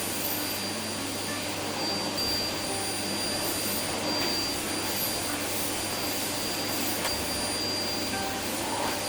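Household vacuum cleaner running steadily: a constant rushing noise with a thin, steady high whine.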